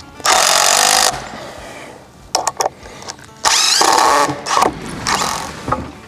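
Handheld power saw cutting a notch into a wooden beam, run in three short bursts of about a second each, with its motor's whine rising as it spins up at the start of the second burst.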